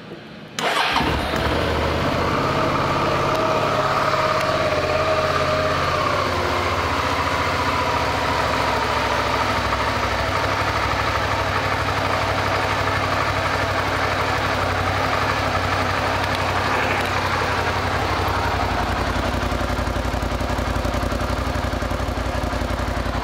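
Suzuki SV650S 645 cc V-twin starting about half a second in, then idling steadily through its muffler.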